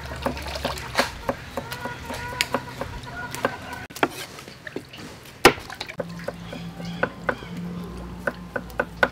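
Kitchen knife chopping vegetables on a wooden cutting board: irregular knocks, coming a few a second near the end.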